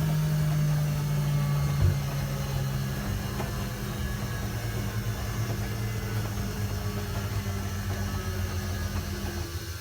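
Hoover Keymatic De Luxe washing machine running a wash: a steady motor hum whose pitch drops about two or three seconds in, with one knock near the start. The hum fades out just before the end.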